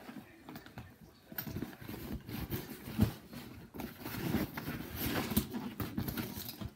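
An overstuffed nylon duffel bag being pressed and tugged to get it closed: irregular fabric rustling, scrapes and soft knocks, with a louder knock about three seconds in.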